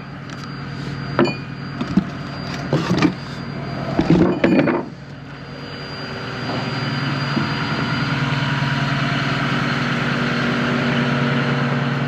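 A diesel engine of heavy equipment running steadily, with several sharp metal knocks in the first five seconds. About six seconds in the engine grows louder and holds there.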